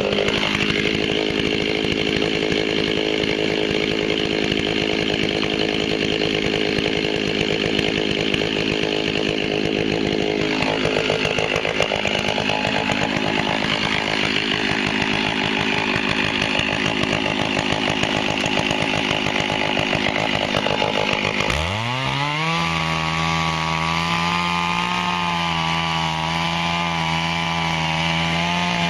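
Stihl two-stroke chainsaw held at full throttle, cutting wood. About 22 seconds in, the rough cutting sound drops out. The engine note dips and climbs back to a steady, cleaner high pitch.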